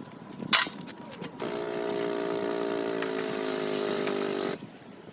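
A sharp metallic knock, then a small motor-driven tool runs at a steady pitch for about three seconds and cuts off suddenly.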